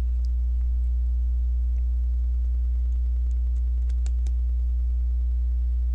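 Steady low electrical hum, with a few faint clicks of plastic LEGO pieces being handled and pressed into place, several close together a little after the middle.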